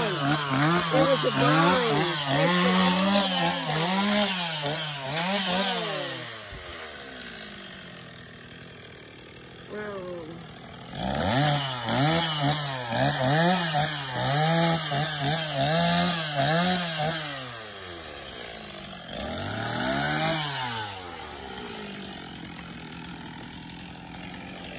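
Two-stroke chainsaw revved up and down again and again, about once a second, in two spells with a quieter stretch between them, and one more rev a little past the middle.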